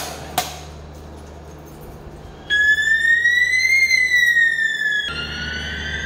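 Two sharp clicks at the manual call point as it is worked with its test key. About two and a half seconds in, the wall-mounted fire alarm sounder starts up: a shrill tone that sweeps slowly up and back down, then restarts lower and climbs again. This is the addressable fire alarm system going into alarm from the call-point test.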